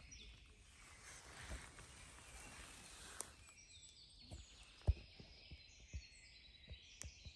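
Quiet spring-forest ambience: faint distant birdsong in short high notes over a soft hiss, with a few soft knocks, the sharpest about five seconds in.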